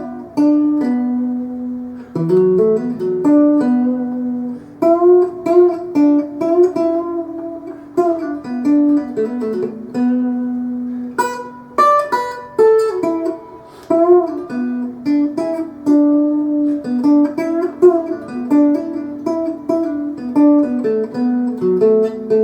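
Acoustic guitar playing an instrumental break: plucked and strummed chords and single-note runs.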